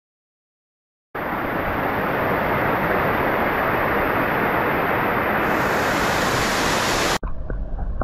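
Waterfall in heavy wet-season flow: a steady rush of falling water that starts abruptly about a second in and cuts off suddenly about seven seconds in, giving way to a muffled low rumble.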